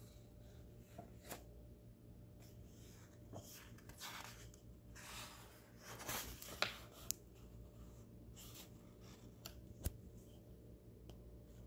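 Faint paper rustling as a page of a hardcover book is turned, with a few sharp clicks and taps from handling the book.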